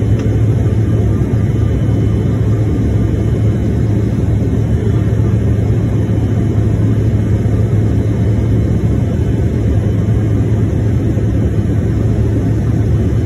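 Steady cabin noise of a jet airliner in flight: engine and airflow drone with a strong low hum underneath.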